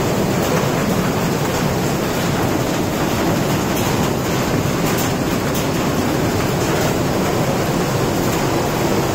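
Floodwater rushing, a loud, steady, unbroken roar.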